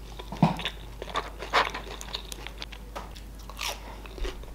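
A person biting into and chewing a piece of deep-fried sushi roll close to the microphone: a bite about half a second in, then crunchy, wet chewing sounds at irregular intervals.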